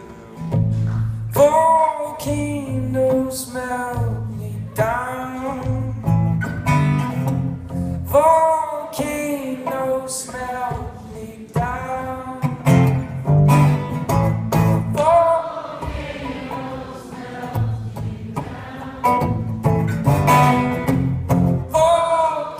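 A man singing drawn-out phrases over his own steadily strummed acoustic guitar.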